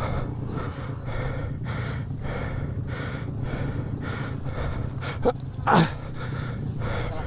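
A dirt-bike rider panting heavily from exertion inside a motocross helmet, about two breaths a second. Two short loud grunts come just past five seconds, over a steady low hum.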